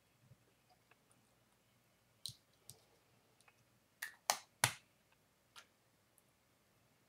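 Sharp clicks and taps of small hard objects being handled: a few scattered ones, then three loud ones in quick succession about four seconds in, and a last one a second later.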